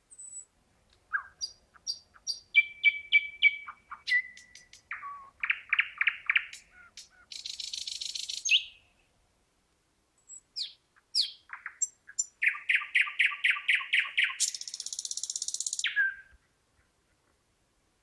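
Thrush nightingale singing two long song phrases, the second starting about ten seconds in. Each phrase runs through dry clicks and fast runs of loud repeated notes, then ends in a harsh buzzing rattle.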